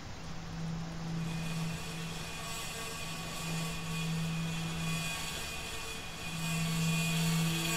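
Ambient drone composition: a steady low hum with a few higher held tones, joined about a second in by a cluster of thin, high sustained tones and a soft hiss that grow louder toward the end.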